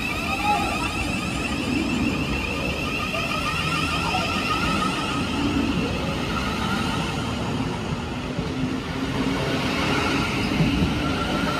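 Thameslink Class 700 electric train moving out of the platform: a steady high electric whine from its traction equipment, in several wavering tones, over a continuous low rumble of wheels on rail.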